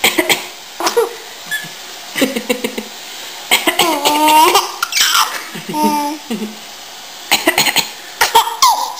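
A woman coughs in short bursts and a five-month-old baby laughs between them, set off by the coughs. About four seconds in, one longer laugh rises in pitch and falls away.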